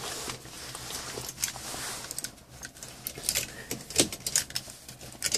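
Scattered light clicks and rattles at irregular intervals, the sharpest about four seconds in, over a faint steady low hum.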